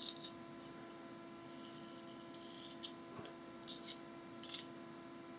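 Artist's spatula scraping and smoothing textured pumice paint around a model tree's coin base: several short, soft scrapes about a second apart, over a faint steady hum.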